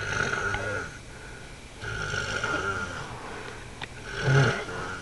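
Snoring: three snores in a row, the second the longest and the third short and loudest.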